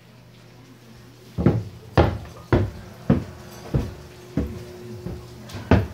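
Footsteps climbing carpeted stairs, heavy thuds at about one step every 0.6 s, starting about a second and a half in, over a faint steady hum.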